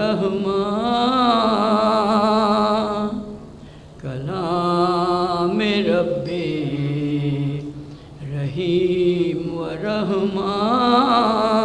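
A man singing an Urdu nazm unaccompanied, drawing the words out in long, held notes with a wavering pitch. It comes in three long phrases with short breaths about four and eight and a half seconds in.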